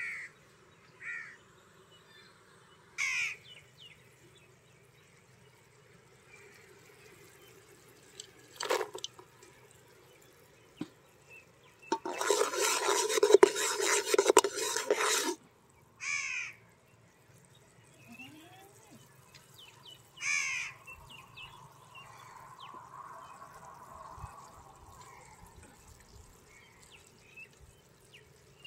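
Crows cawing, one short call every few seconds. About twelve seconds in, a ladle stirs and scrapes around a metal pot of boiling jaggery syrup for some three seconds, the loudest sound. The syrup bubbles faintly underneath.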